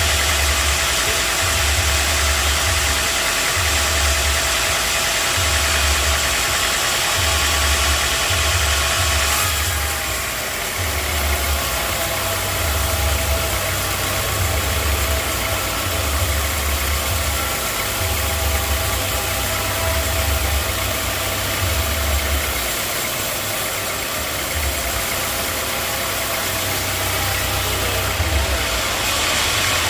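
Sawmill machinery running steadily: an engine with a low throb about once a second under a constant hiss, the hiss dropping about ten seconds in and rising again near the end.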